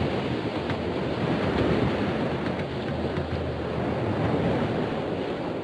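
Sea waves washing in a steady rush of surf.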